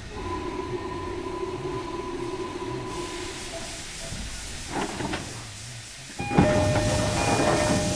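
Interior sound of a JR Kyushu 305 series electric train car: a steady hum with a faint whine. About six seconds in, a sudden louder hiss sets in, with several steady tones over it.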